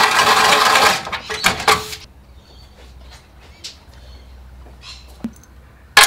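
Cordless drill running at speed for about the first second, then stopping. A few light clicks of metal parts being handled follow, and a single sharp knock near the end.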